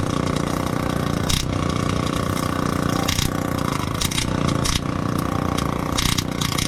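Pulsed MIG welder laying a bead on thin sheet-steel floor panel: a steady crackling buzz with a constant hum underneath, broken by sharper pops and crackles.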